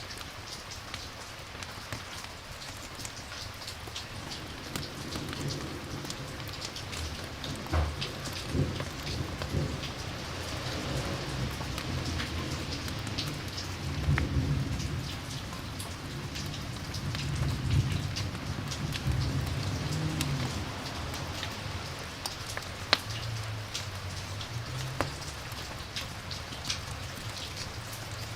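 Steady rain falling, with many small sharp drop ticks, and a low rumble of thunder that builds a few seconds in, swells twice in the middle and fades out over the second half.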